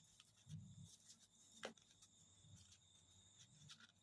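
Near silence: faint scattered clicks and soft rustles of fabric and thread being handled while tacking by hand with needle and thread, one sharper click a little under two seconds in, over a faint steady high-pitched trill.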